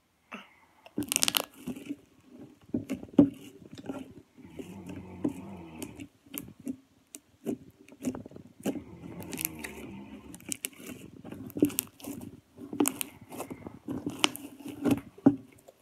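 Homemade Elmer's glue slime being squeezed and pressed by hand, giving irregular crackling clicks and small pops as trapped air bubbles are pushed out.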